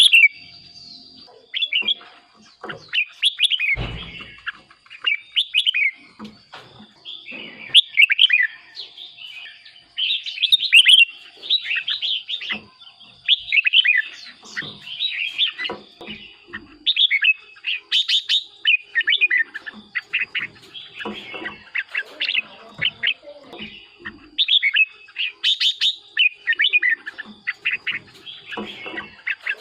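Red-whiskered bulbul singing: short, quick warbled phrases repeated every second or two, with a faint steady high whine underneath.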